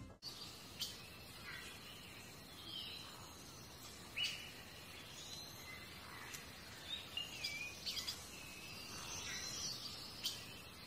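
Birds chirping outdoors: short, scattered calls and gliding whistles over a faint, steady background.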